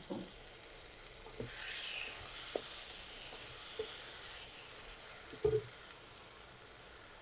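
Wooden spatula stirring thick fish masala in a kadai, with a few light knocks of the spatula against the pan. A soft sizzle of the frying masala rises about a second and a half in and fades out about three seconds later.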